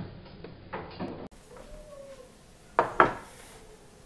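Two sharp knocks close together about three seconds in, from a plate being set down on a wooden dining table, after a faint short squeak.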